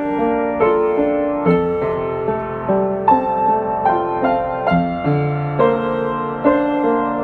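Solo piano playing a slow, gentle piece, single notes and chords struck about every half second to a second and left to ring and fade.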